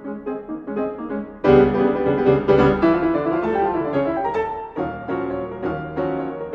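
Piano four hands playing a jazz piece in a bebop style. About one and a half seconds in, a much louder, fuller passage of chords comes in and carries on to the end.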